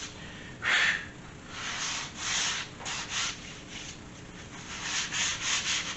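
Sandpaper rubbed by hand over an MDF panel, scuffing off the raised fibres ('fuzz') left by the CNC cut. The strokes are irregular, the strongest about a second in, and quicken into a run of short, rapid strokes near the end.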